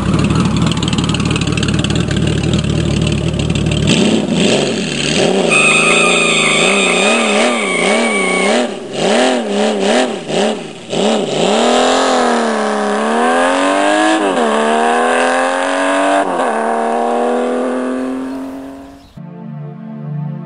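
Loud engine revving, its pitch swooping up and down again and again in quick blips and longer rising runs, giving way near the end to rock music.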